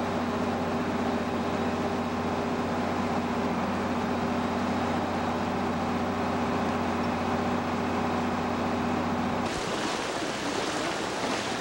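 A steady mechanical hum of several unchanging tones over a constant rushing noise. About nine and a half seconds in it cuts off sharply to a brighter, broader hiss of rain and floodwater.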